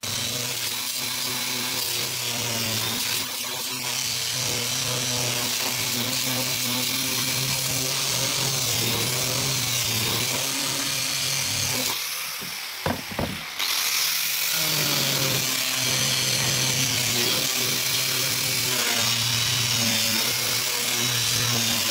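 Small electric angle grinder with a sanding disc running steadily while sanding pine boards. Its sound briefly drops about twelve seconds in, with a couple of short clicks, before it runs on at full level.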